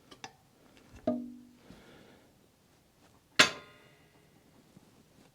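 Metal tool clanks from a breaker bar and T50 Torx socket being fitted to the motorcycle's rear wheel bolts. There is a ringing clank about a second in, then a sharper, louder ringing clink a little past halfway.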